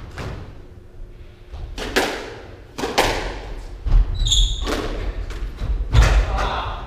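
Squash rally in an enclosed court: sharp cracks of racket on ball and ball on wall, about a second or two apart, each ringing briefly in the court, with heavy thudding footsteps on the wooden floor. A short shoe squeak sounds about four seconds in.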